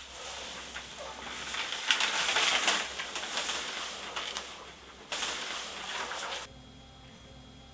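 Sheets of paper rustling and crinkling as they are handled: a long stretch, then a second, shorter one starting suddenly about five seconds in.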